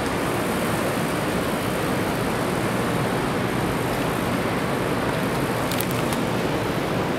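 Steady city traffic noise rising from the streets below a rooftop, an even roar with no pauses.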